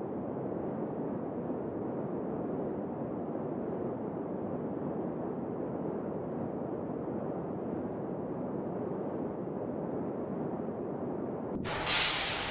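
A steady, muffled rumbling noise with no tones. About a second before the end it cuts abruptly to brighter, hissing machine noise from a car-body production line.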